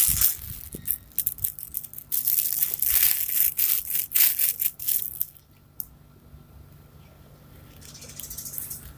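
Priddy Books 'Fuzzy Bee and Friends' cloth baby book being handled and its pages turned, its crinkly inner layers giving a rapid crackling rustle for about five seconds, then only faint soft fabric rustles.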